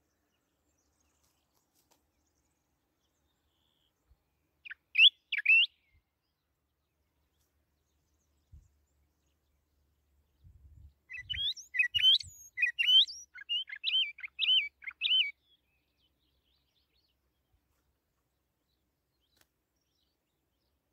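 A songbird singing: a brief two-note phrase about five seconds in, then a longer run of quick, varied chirping notes from about eleven to fifteen seconds.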